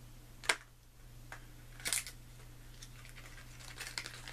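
A small makeup palette sampler being worked open by hand: a sharp click about half a second in, a short crinkle of packaging near two seconds, then light clicks and rustling toward the end.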